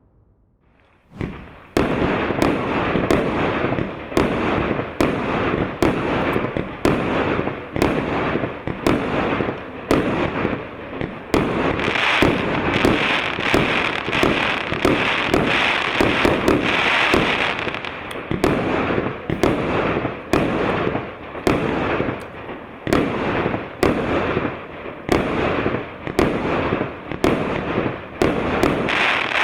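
A 100-shot fireworks cake of 1.25-inch (32 mm) calibre firing. After a short quiet moment, it sets off a rapid, continuous string of launch thumps and aerial bursts, several shots a second, with crackling between them.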